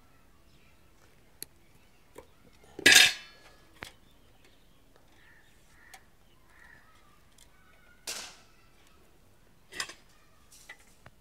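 Scattered clicks and clatters of metal tools and parts being handled on a gas stove's metal body: one loud clatter about three seconds in, two softer ones near eight and ten seconds, and light clicks between.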